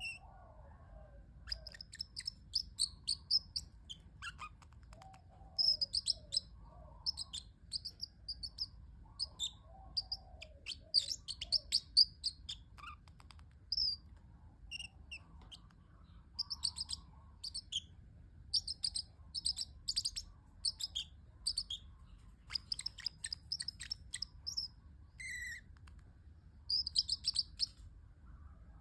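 Parrotlet chirping in quick, high-pitched clusters of short tweets with brief pauses between, and one longer, lower call near the end.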